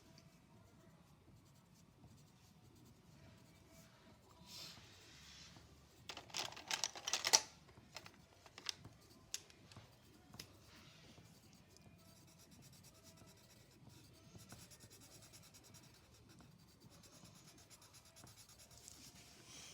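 Colouring on paper: faint scratching of a drawing tool, with a brisk run of rapid scribbling strokes about six seconds in and a few light taps after it.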